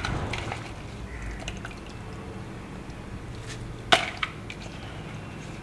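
Chutney ingredients (mint leaves, chillies, ginger, tamarind) being put into a stainless-steel mixer-grinder jar: quiet rustling and light taps, with a sharp clink about four seconds in and a smaller one just after.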